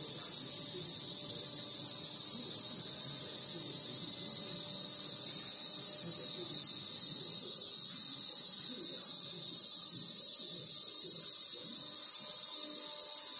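Micro RC plane's small electric motor and propeller running at flight throttle: a steady high-pitched hiss that swells over the first second and then holds.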